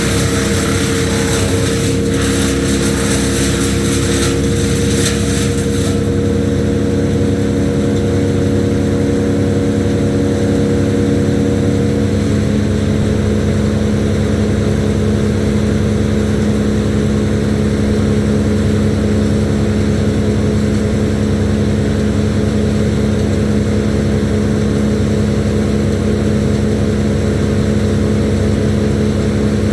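An engine running steadily at a constant pitch throughout, with a harsh high hiss over it for the first few seconds.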